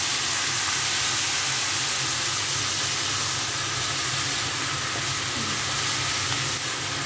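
Chinese broccoli (kailan) sizzling steadily as it stir-fries in a nonstick frying pan, turned with a spatula.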